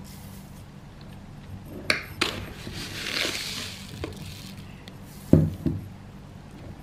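A metal spoon clinking against a glass sugar jar and a bowl while sugar is scooped and tipped in: a few sharp clinks, the loudest about five seconds in, with a short rustling scrape around the middle.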